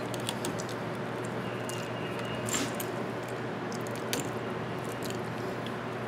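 Small clicks and scrapes of a screwdriver and stiff 12-gauge copper wire being worked under the screw terminals of a 20 amp outlet, with a few sharper clicks scattered through, over a steady hiss.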